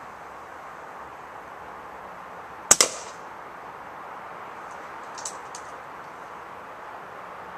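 A single shot from a silenced Daystate Huntsman Classic .177 pre-charged pneumatic air rifle: a sharp crack, followed a split second later by a second smack. A few faint clicks follow about two seconds later.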